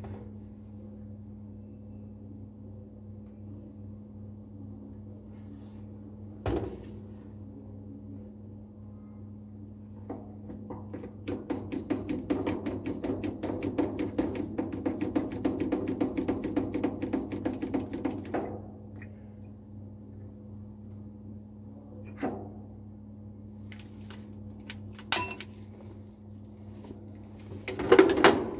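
Steady low hum of a biosafety cabinet's fan, with a few sharp plastic clicks and knocks from pipetting at the work surface. A rapid crackling rustle runs for about eight seconds in the middle.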